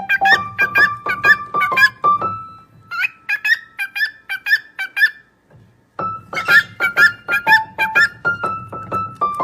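Music: a quick melody of short, high notes in a keyboard-like sound, some notes held under the others, with a brief complete break past the middle.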